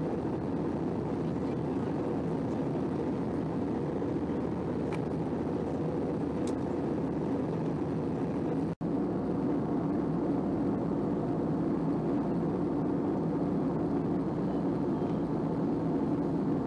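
Steady cabin noise of a jet airliner in flight, the hum of engines and rushing air heard from inside at a window seat. It cuts out for an instant about halfway through, then carries on.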